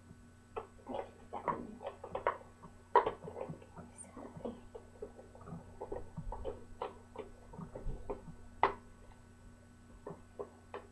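Yellow plastic exercise wheel and its attachment clicking, knocking and rattling against the wire bars of a gerbil cage as it is fitted in place, with irregular small taps and a few louder knocks.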